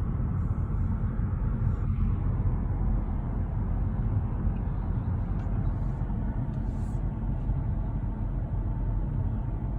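Car driving along at a steady speed: a constant low rumble of engine and tyres on the road.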